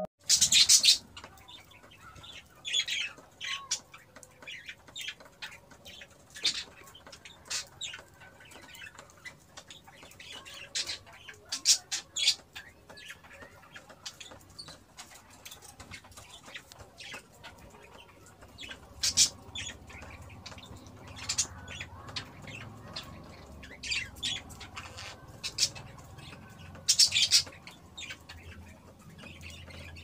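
Budgerigar making short, sharp, high-pitched chirps and squawks at irregular intervals, a few of them louder and longer, with scratchy sounds in the seed of its wooden nest box.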